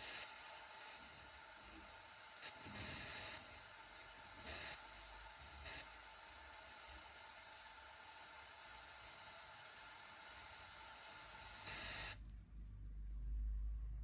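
Steady hiss with a few brief louder swells about two and a half to six seconds in, cutting off abruptly about twelve seconds in.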